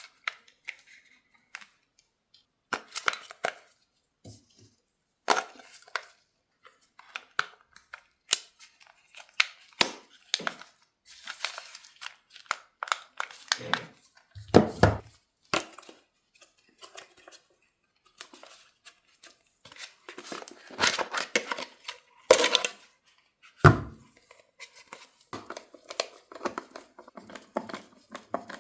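Toy packaging being opened by hand: cardboard and tape tearing and plastic wrapping crinkling, with scattered sharp clicks and knocks as pieces are handled. The longest tearing rustles come about halfway through and again toward the end.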